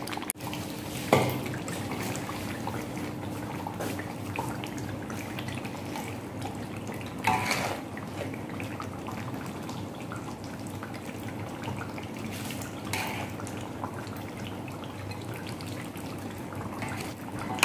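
Saucy chicken rendang being scooped from a large aluminium wok and dropped into a plastic bowl: wet drips and plops of gravy and spatula scrapes, with a few louder ones every several seconds, over a steady low hum.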